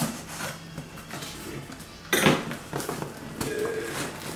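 Knife cutting the packing tape and cardboard of a small shipping box: short rasping scrapes and slices, the loudest about two seconds in.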